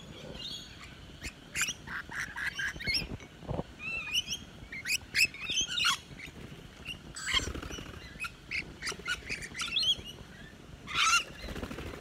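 A flock of rainbow lorikeets chattering and screeching at close range, a steady run of many short, high, quickly bending calls overlapping one another.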